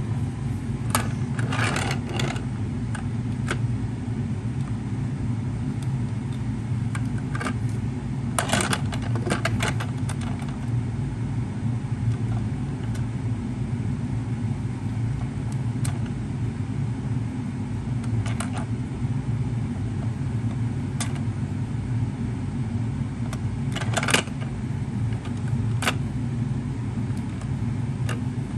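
Irregular plastic clicks and taps from a Road Rippers toy fire truck being handled and its light-and-sound button pressed, over a steady low hum. The truck's sound unit gives nothing: only its lights work.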